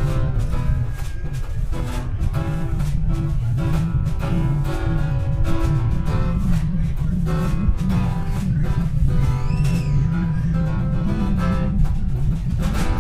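Live acoustic band playing an instrumental passage: acoustic guitar picking and strumming over an upright bass line.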